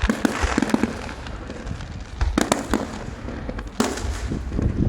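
Fireworks display going off: a rapid run of sharp reports and crackling over low booms, with a cluster of loud bangs about two and a half seconds in and another strong report near four seconds.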